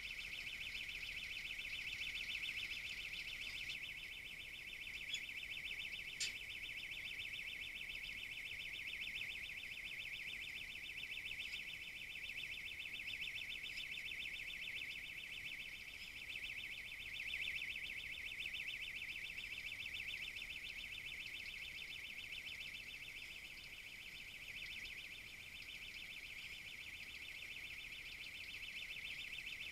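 Steady high-pitched electronic buzzing with a fast pulse, with two short clicks about five and six seconds in.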